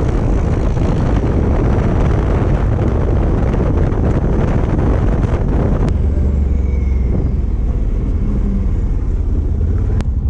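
Quad bike (ATV) engine running under way, with wind rushing over the helmet-mounted microphone. About six seconds in the wind noise drops and a steadier low engine rumble is left.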